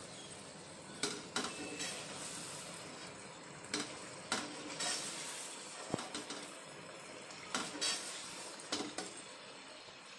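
Mutton frying in oil in a nonstick kadhai, with a steady sizzle. A slotted spatula stirring the meat scrapes and knocks against the pan again and again.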